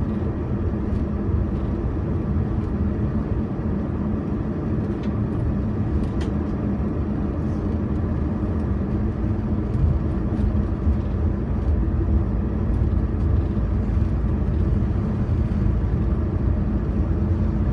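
Steady road noise of a moving car heard from inside the cabin: engine and tyre hum, strongest in the low end, with a few faint ticks.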